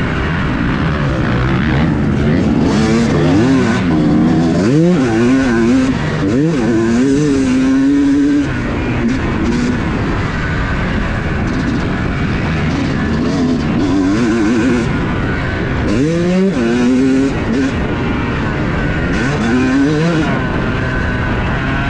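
Yamaha YZ250 two-stroke motocross bike's engine revving hard through the gears, its pitch climbing in several quick rising sweeps and dropping back as the rider rolls off and shifts, over steady wind rush on a bike-mounted camera.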